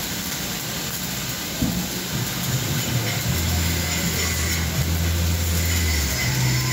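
Stick-welding arc giving a steady crackling hiss, over the low hum of a running machine that grows louder about three seconds in.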